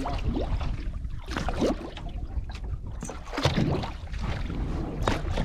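Wind buffeting the microphone over water and boat noise on a fishing boat at sea, a steady low rumble with scattered short knocks and clicks from handling gear.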